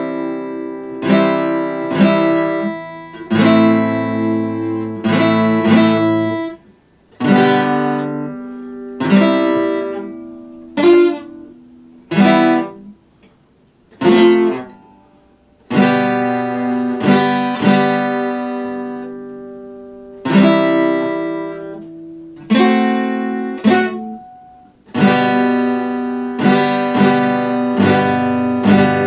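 Epiphone steel-string acoustic guitar strummed in chords, each chord struck and left to ring and fade, sometimes several strums in quick succession, with a few brief silent breaks between phrases.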